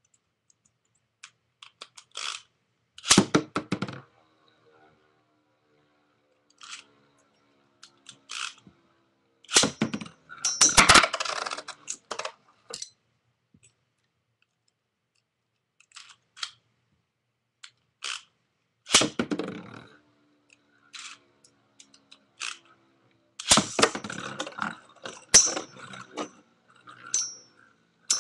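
Intermittent clicks and clattering from Beyblade tops and launchers being handled, then near the end the metal Rock Leone and Dark Wolf Beyblades spin in a plastic stadium, clashing with short high metallic clinks.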